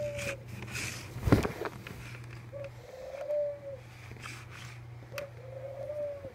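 A dove cooing three times at an even pace, each call a short note followed by a longer, slightly arching one, over a steady low hum. A single sharp knock of the phone being handled about a second in.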